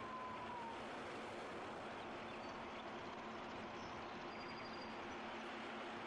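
Steady wind-and-storm ambience: an even rushing noise. A faint held whistle-like tone dies away within the first second, and a few faint high bird chirps come about midway and near the end.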